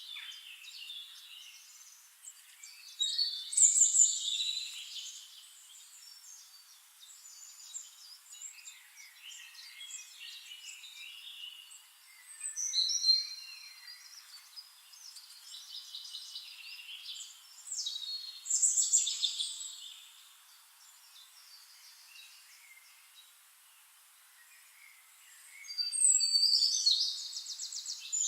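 Birds chirping and singing, with constant twittering and several louder flurries of calls every five to eight seconds.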